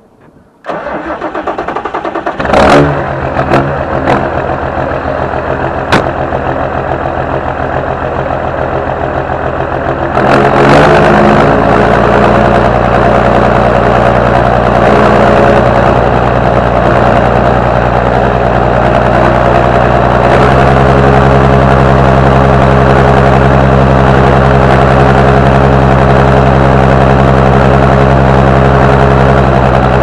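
The engine of a 6820 being started. It cranks briefly, catches about two seconds in with a loud burst, then runs. It picks up to a louder, faster speed about ten seconds in and steps up again around twenty seconds, then runs steadily.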